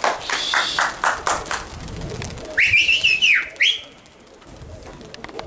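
A flock of about seventeen diving pigeons flapping away just after release, their wingbeats clattering about five times a second and fading out within two seconds. Midway a loud two-part whistle rises, holds and falls.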